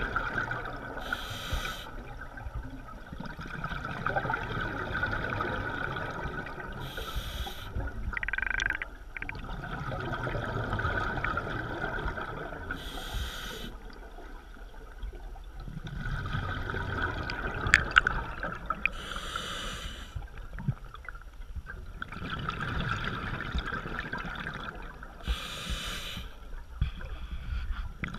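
Scuba diver breathing through a regulator, heard underwater: a short hiss about every six seconds, five in all, with bubbling between them.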